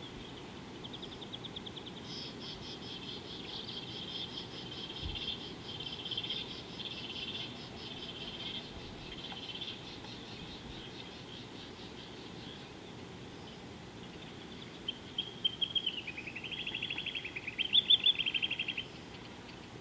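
A bird calling in rapid trills: a long, fairly even trill for most of the first half, then a louder series of choppy trills near the end that drops in pitch and climbs back up. Faint wind-like outdoor background throughout.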